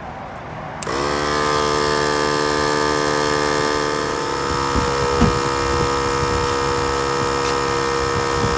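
Portable electric tyre inflator switching on about a second in and running steadily with a buzzing motor hum, pumping air back into a freshly plugged tyre up to 35 psi.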